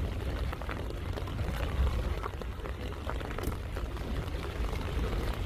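Rainwater runoff pouring and dripping from a roof edge, a steady splattering with irregular drips over a low rumble. The speaker calls this runoff very loud, loud enough to make the cats uneasy.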